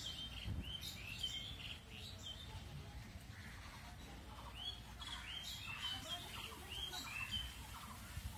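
Small birds chirping: bouts of short, quick, high notes, one in the first two seconds and another from about four and a half to seven seconds in, over a steady low rumble.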